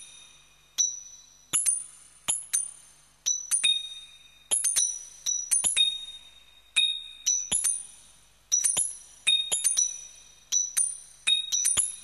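Abstract experimental electronic music: sharp clicks, each with high, bell-like synthetic pings that ring and fade, coming in uneven clusters about once a second.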